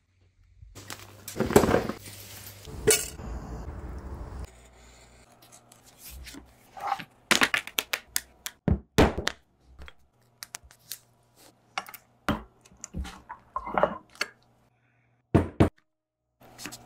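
Leather-working handling sounds: irregular sharp taps, knocks and clicks of tools and leather pieces on a wooden worktable, with a louder rustling, scraping stretch about one to four seconds in.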